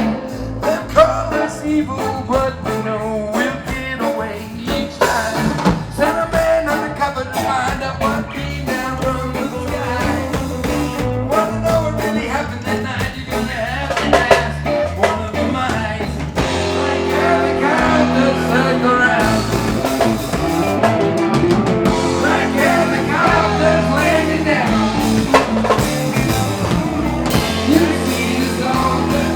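Rock band playing live: electric guitars, bass guitar and drum kit, with a steady beat.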